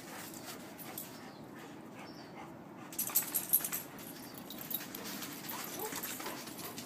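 A dog breathing in a short run of quick puffs about three seconds in, otherwise faint and low.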